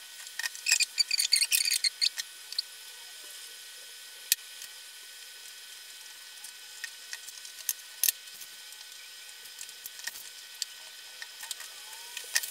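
Crisp rustling and crackling of phyllo pastry sheets being handled and brushed with ghee, thickest in the first two seconds. After that come scattered light clicks and taps over a faint steady hiss.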